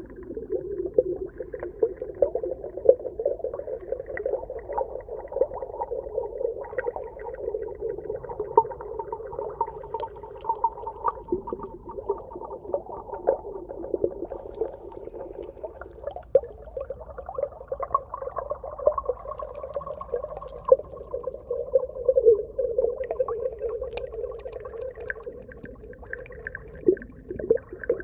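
Underwater ambience: a steady low hum dense with small crackling clicks, with a higher drawn-out tone coming in a little past halfway.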